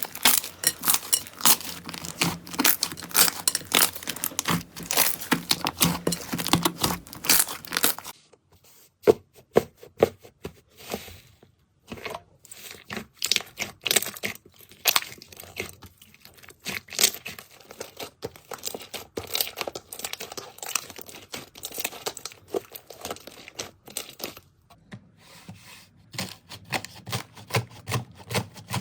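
Slime being squeezed, pressed and stretched by hand, a dense run of crackling clicks and pops. It breaks off suddenly about a third of the way in, goes on sparser and quieter, and gets busier again near the end.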